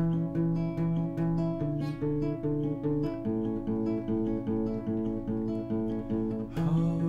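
Acoustic guitar picking a repeating pattern of single notes, with a louder strummed chord about six and a half seconds in.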